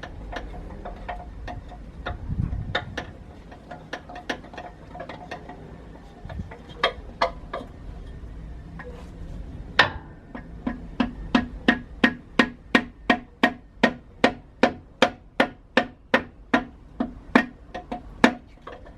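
Hammer tapping on a block of wood to drive a piston out of an International DT466E diesel's cylinder. Irregular knocks at first, then steady rapid blows, about three a second, through the second half.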